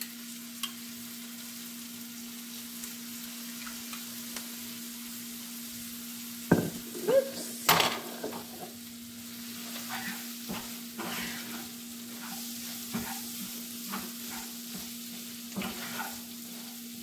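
Shredded pork frying in a frying pan with a steady sizzle. About six and a half seconds in come a few loud knocks and clatters as salsa goes in from a jar, then a wooden spatula scrapes and taps against the pan as the meat is stirred.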